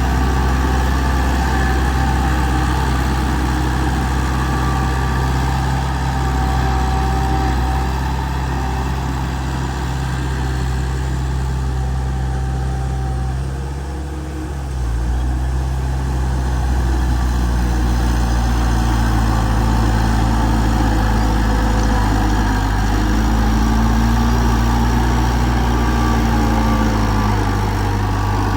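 Heavy diesel engine of earthmoving machinery running steadily at low revs, with a brief drop in level about halfway through.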